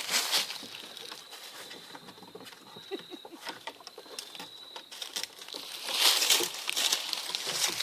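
Light scattered pattering and rustling of footsteps, louder for a couple of seconds near the end, with a faint steady high whistle-like tone through the middle.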